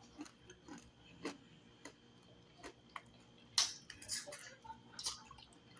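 Faint close-up eating sounds of a person chewing fried turtle meat off the bone with her fingers at her mouth: scattered wet mouth clicks and lip smacks, with a louder smack about three and a half seconds in and another about five seconds in.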